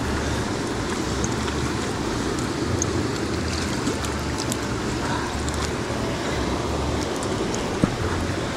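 Small mountain stream running steadily: an even rush of flowing water, with a single sharp click near the end.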